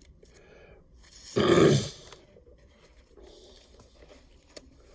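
A person's short grunt-like vocal sound, about a second and a half in, loud against an otherwise quiet room with a few faint clicks.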